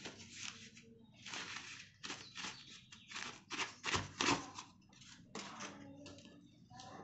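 Corrugated cardboard shipping packaging being opened and handled: a run of rustling, scraping noises, loudest about four seconds in with a couple of dull thumps.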